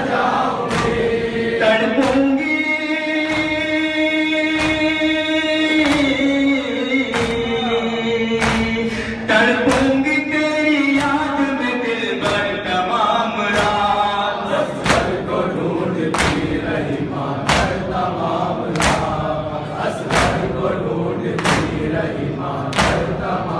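Men chanting a noha, a Shia mourning lament, in chorus with long held notes. Under it, sharp slaps of matam (rhythmic chest-beating) keep an even beat of about one every 1.3 seconds.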